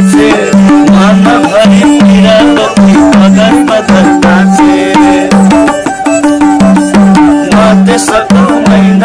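Nepali folk music: a madal hand drum beats a steady rhythm of low and higher pitched strokes under a bowed sarangi and a man singing.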